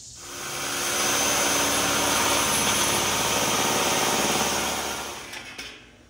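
A power tool cutting a metal roofing panel, peeling off a thin spiral strip of metal. The sound builds over the first second, runs steadily for about four seconds, then dies away near the end.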